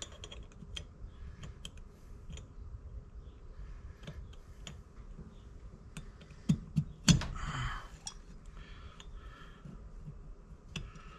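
Scattered light clicks and taps of small metal carburetor parts being handled as the throttle plate is fitted back onto the throttle shaft of an S&S Super B carburetor, with a few louder knocks about two-thirds of the way through.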